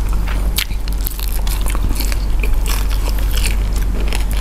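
Close-miked eating sounds: chewing and biting with many short, crisp mouth clicks and crunches, over a steady low hum.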